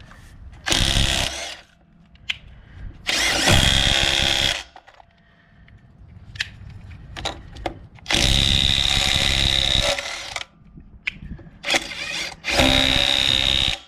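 Ridgid 18 V sub-compact brushless 1/2-inch cordless impact wrench tightening truck lug nuts in five bursts of one to two seconds, each with a steady high whine, with light clicks of the socket going onto the nuts between them.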